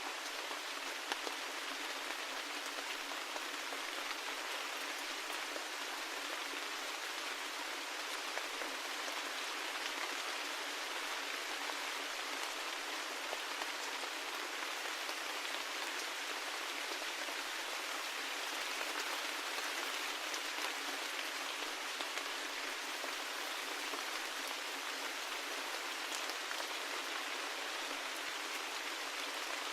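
Steady rain falling, an even hiss with many small drop ticks, its low end cut away.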